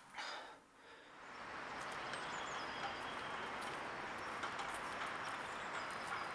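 Outdoor park ambience: a steady wash of background noise that fades in about a second in, with a few faint bird chirps over it. A short, soft breathy sound comes right at the start.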